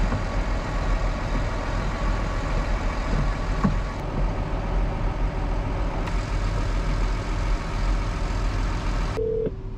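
Tractor engine running steadily at an even speed. It cuts off suddenly near the end, leaving a quieter background with a steady tone.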